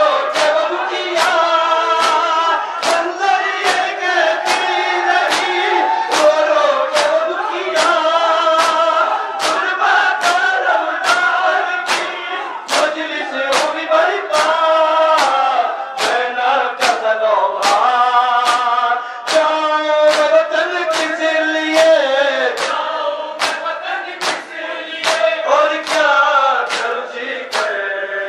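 Crowd of men chanting a nauha, a Shia lament, in chorus, with loud rhythmic hand slaps on bare chests (matam), about one and a half beats a second.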